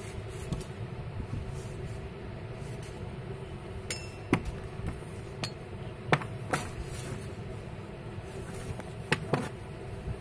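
Scattered sharp clicks and light knocks, about seven over several seconds, one with a brief glassy ring, as a hookah's hoses and fittings are handled against its glass base and metal stem. A steady low hum and hiss sits underneath.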